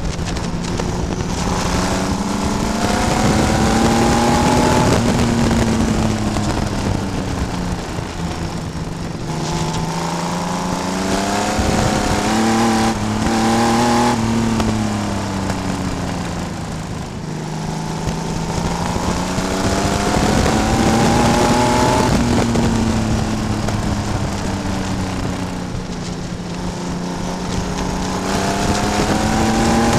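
Vintage oval-track race car's engine at racing speed, recorded on board: its pitch climbs on each straight and drops as the driver lifts for the turns, four climbs in all.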